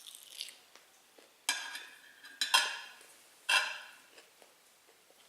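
Cutlery clinking and scraping against a plate during a meal: a few light scrapes, then four sharp clinks about a second apart, each ringing briefly before it fades.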